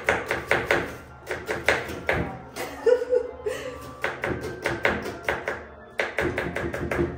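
Rapid knife chopping on a cutting board, about five strokes a second, in three bursts with short pauses, over background music.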